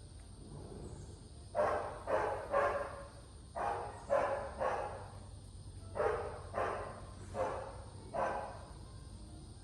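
A dog barking repeatedly in short runs of two or three barks, about nine barks in all, starting about a second and a half in.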